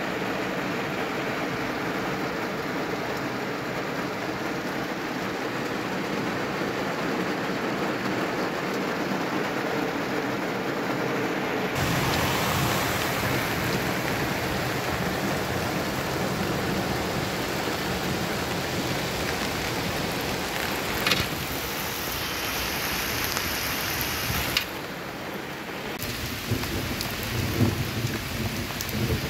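Heavy rain pouring down in a steady, dense hiss, with a few sharp drop clicks. The rain sound shifts abruptly twice, about twelve and twenty-five seconds in.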